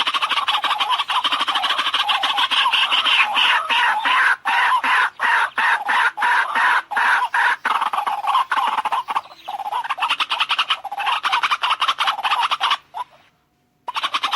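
White-breasted waterhen calling: a loud, rapid, unbroken run of repeated notes with a few short gaps. Near the end it cuts off to silence for about a second, then starts again.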